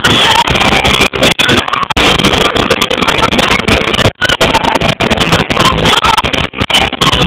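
A live hard rock band playing at full volume, heavily distorted and clipping in a phone microphone close to the PA speakers, with brief dropouts in the sound.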